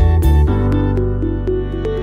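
Background music with a steady beat and a synth melody; about half a second in the beat stops and a held bass note carries on under the melody.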